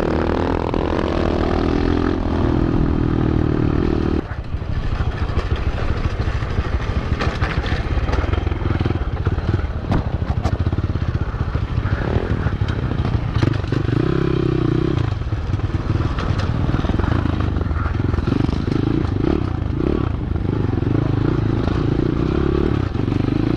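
Pit bike engine running under way, close to the rider, its pitch rising and falling with the throttle. The sound changes abruptly about four seconds in, then runs rougher, with rattling and wind noise over the dirt trail.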